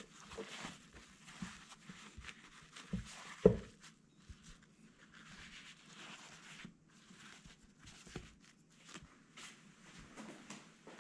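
Paper towels rustling and crinkling as hands fold and press them over raw fish fillets to blot out the oil, with one sharp knock on the wooden cutting board about three and a half seconds in.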